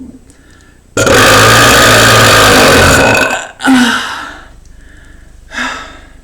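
A man's long, deep, very loud belch lasting about two seconds, brought up from swallowed air (a 'chest gulp'). A shorter burst follows just after and dies away, and a smaller one comes near the end.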